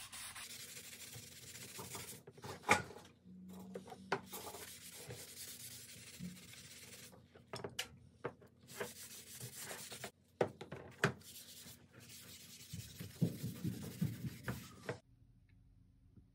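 A cloth rag rubbing tung oil finish onto a hardwood axe handle, in strokes broken by short pauses, with a few light knocks and clicks. It stops abruptly about fifteen seconds in.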